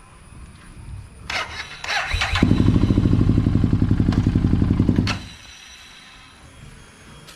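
Harley-Davidson Street 750's V-twin engine cranked by the starter, catching about a second later and running rhythmically for under three seconds before it stops. The owner says the bike is misfiring.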